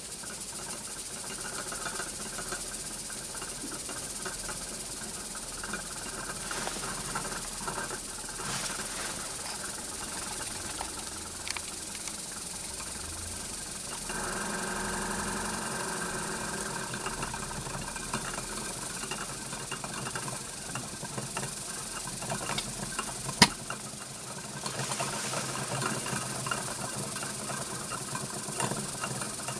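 Steam hissing steadily out of the jets of a small home-made brass Heron-type steam engine (aeolipile) heated by a methylated-spirit flame. There is a single sharp click about 23 seconds in.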